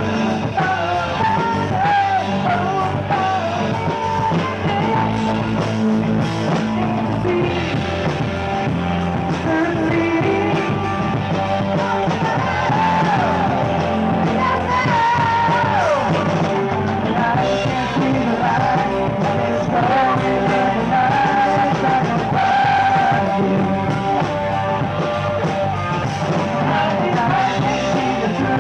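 Rock band playing live: electric guitar over bass guitar and drums, with singing.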